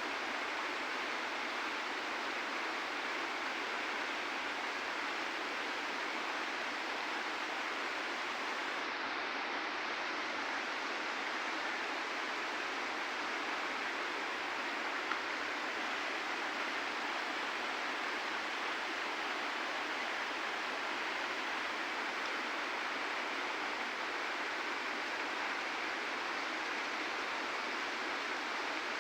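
Steady rushing of flowing river water, an even unbroken noise.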